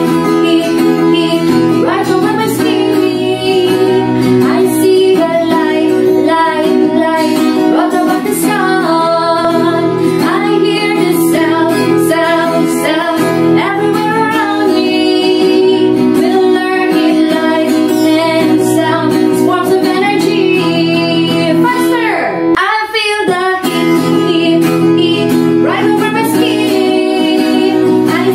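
A woman singing a children's song about heat, light and sound ("I feel the heat heat heat right over my skin, I see the light light light brought about the sun"), accompanied by acoustic guitar.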